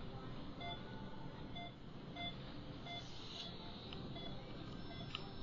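Short electronic beeps repeating a little faster than once a second, with a brief hiss about halfway through and a couple of faint clicks near the end.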